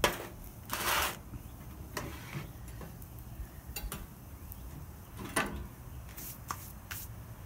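Scattered sharp clicks and light knocks of cooking utensils being handled at a griddle, with a brief rushing noise about a second in, over a faint steady background hiss.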